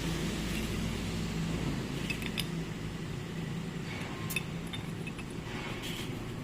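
A steady low hum with a few light metallic clicks and clinks, as of small parts or tools being handled.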